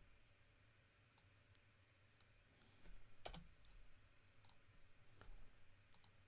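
Near silence with faint, scattered clicks, the loudest about three seconds in.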